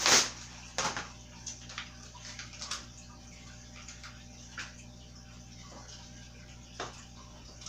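Handling noise from fitting a toddler bike's seat: a sharp knock right at the start, a few clicks about a second in, then scattered light taps and rustles that thin out.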